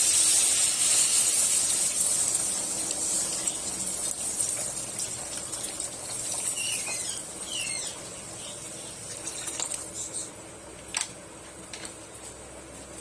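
Water and curry in a hot pan hissing and sizzling, the sizzle fading over the first several seconds to a quiet simmer, with a few light clicks near the end.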